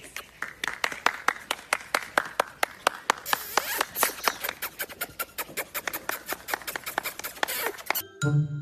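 Quick, even hand clapping, several claps a second, which stops near the end as a chiming tune begins.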